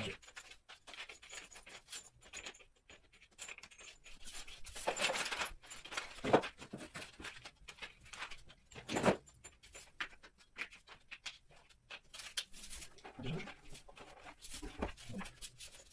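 Small flat-pack fittings (metal screws, brackets and cam locks, wooden dowels) picked up and set down on cardboard: scattered light clicks and clinks with rustling, and two louder knocks, about six and nine seconds in.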